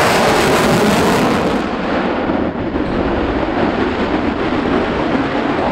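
Military jet making a low, fast pass: loud, coarse jet noise whose hissing top end falls away about a second and a half in, leaving a duller steady rumble.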